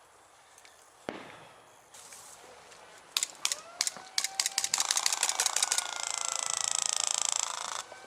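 Airsoft guns firing: a few single shots, then rapid bursts of automatic fire that build into a sustained stream and stop abruptly near the end.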